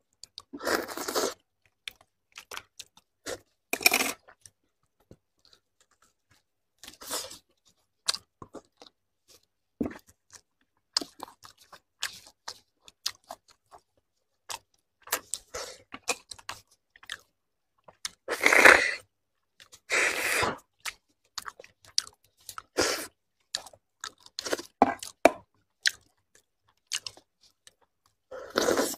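Eating beef bone marrow: a small fork scraping marrow out of cut bones, with chewing and crunching. The sounds come in irregular spurts with pauses between them, and several are louder.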